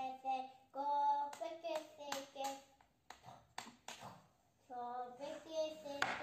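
A chef's knife knocking against a wooden cutting board while slicing zucchini into strips: a few sharp taps, one louder near the end. A background vocal melody with long held notes plays in the first half and again briefly later.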